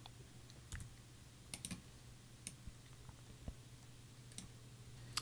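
Faint, scattered clicks of a computer keyboard and mouse pressing modeling hotkeys, a few strokes about a second apart, over a steady low hum.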